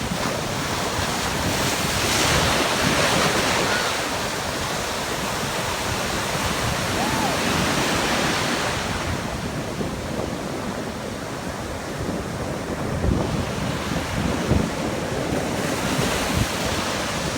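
Ocean surf breaking and washing up the shore, swelling louder twice, with wind buffeting the microphone in gusts near the end.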